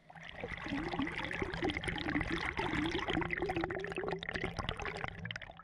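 River water splashing and gurgling right against a floating camera's microphone: a dense crackle of small splashes with a wavering gurgle. It starts suddenly at the beginning and dips briefly near the end.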